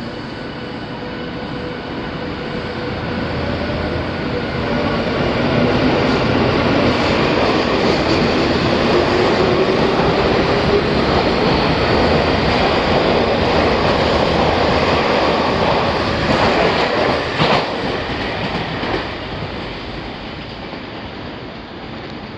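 Y500 series electric train pulling out of the station and passing close by. Its motor whine rises in pitch as it speeds up, with a few sharp wheel clacks over rail joints late on, and the noise then fades as the train moves away.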